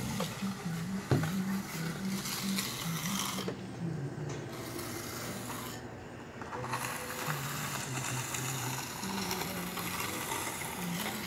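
Rubbing and rustling of a handheld phone being carried while walking, with a sharp knock about a second in and a low hum that steps up and down in pitch.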